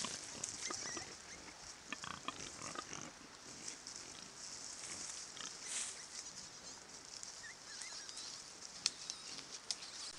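A group of wild boar, a sow with piglets, grunting in short calls while rooting through dry leaf litter. Scattered rustles and clicks come from their feet and snouts, with the grunts clustered in the first few seconds.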